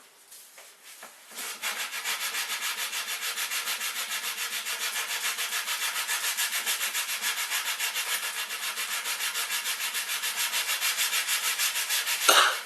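Fast, even rasping strokes, about four or five a second, of an edge being chamfered to take off its sharp corner. A louder knock comes near the end.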